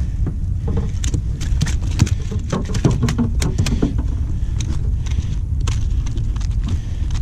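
Clicks, rattles and rustling as a flathead is handled in a mesh landing net and clamped with metal lip grips, over a steady low wind rumble on the microphone. The clicks come thickest in the first half.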